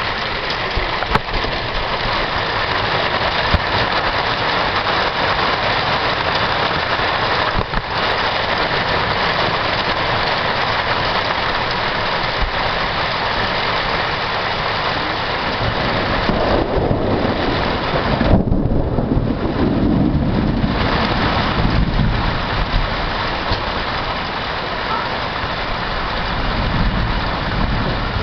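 Steady rain falling, with a low rumble of thunder rolling for several seconds about two-thirds of the way in.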